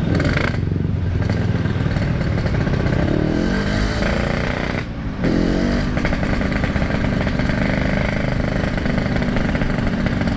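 Yamaha RX-King 135 cc two-stroke single-cylinder motorcycle engine under way, pitch climbing as the throttle opens, with a brief drop just before the five-second mark as the rider shifts gear, then climbing again and settling into a steady run.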